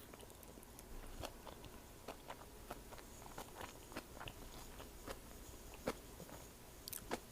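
A person chewing a last mouthful of food close to the microphone: a steady run of many small clicks and crunches from the mouth.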